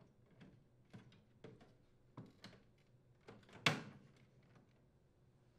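A microwave's vent grille being pressed onto the cabinet and snapped into place: a series of faint clicks and light taps, with one sharper snap about three and a half seconds in.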